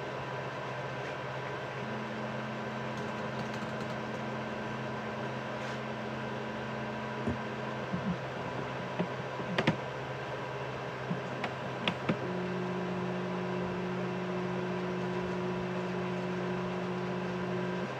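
Multicolour 3D printer's stepper motors whining in steady tones while it changes filament, pulling back one colour and pushing the next through the nozzle. A cluster of sharp clicks and ticks comes near the middle, over a steady machine hum.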